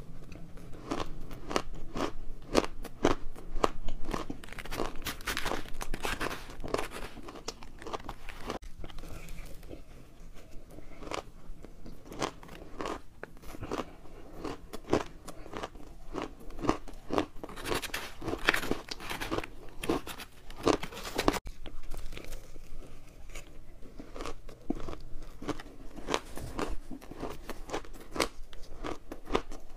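Close-miked crunching and chewing of powdery frozen ice topped with matcha powder: a dense, irregular crackle of small crunches that keeps going with only brief breaks.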